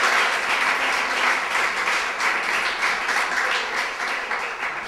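Audience applauding with steady clapping that dies down near the end.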